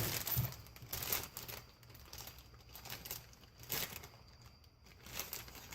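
Irregular rustling and light clicks and knocks of winch-mounting hardware and parts being handled by hand.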